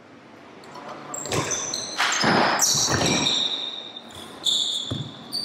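Badminton doubles rally: rackets strike the shuttlecock several times, sharp hits starting about a second in, mixed with short high squeaks of sports shoes on the wooden court floor.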